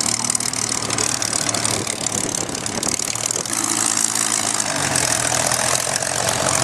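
Supermarine Spitfires' V12 piston engines idling as the fighters taxi past one after another. The lumpy low engine note shifts as one aircraft moves away and the next comes close.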